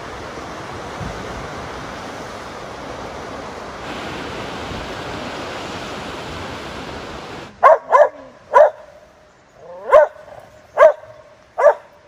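Surf washing steadily over the rocky shore, then, after a cut, a dog barking: six sharp, loud barks, irregularly spaced, over the last four seconds or so.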